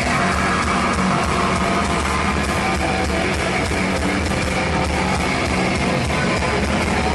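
A live heavy metal band playing, with distorted electric guitars over bass and drums.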